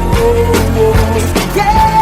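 Pop song playing, with a steady drum beat under held melody notes.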